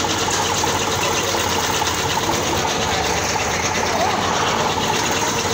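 A motor-driven machine running steadily, with a fast, even chatter.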